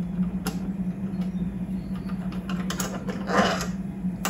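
Light metallic clicks and taps as screws are handled and taken out of the exhaust port plate on the laser cutter's sheet-metal back panel, over a steady low hum. A short scraping rustle comes a little over three seconds in.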